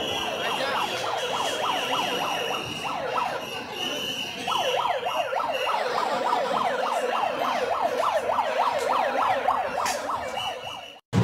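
Siren-like electronic wailing: several warbles overlap, each rising and falling a few times a second, over crowd noise, with a steady high beep that comes and goes. It cuts off suddenly near the end.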